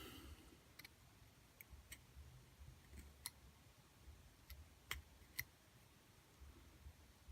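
Faint, irregular small clicks and ticks of a tool picking at the slots of a brushed motor's copper commutator, clearing out leftover copper and sandpaper grit after sanding; about eight clicks spaced unevenly.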